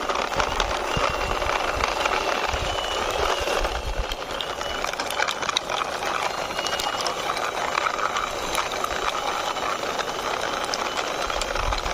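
Toy truck pushed along by hand, its wheels making a steady rolling noise with scattered clicks.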